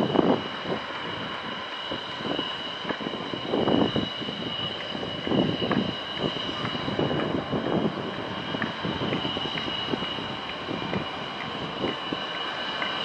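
Antonov An-124's four D-18T turbofan engines running at taxi power as the freighter turns onto the runway. A steady high two-tone whine sits over an uneven low rumble.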